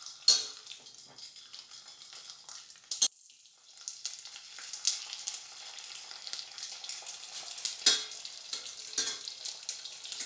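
Dried, boiled pig ears deep-frying in very hot oil: a steady sizzle full of crackling pops as the skin puffs up into pork crackling. The sizzle drops out briefly about three seconds in.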